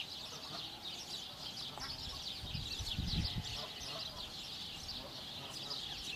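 A dense chorus of many birds chirping at once: quick, high calls overlapping without a break. A low rumble rises and fades about three seconds in.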